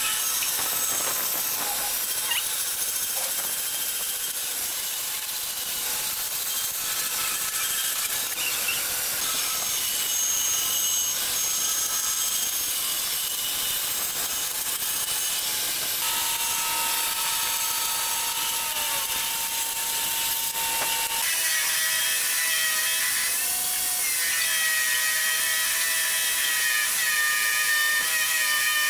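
A band saw runs and cuts through a curved wooden board, slicing it into thin curved strips along pencil lines. About 21 seconds in, the sound changes to a spindle sander's drum running and sanding the curved edge of a strip.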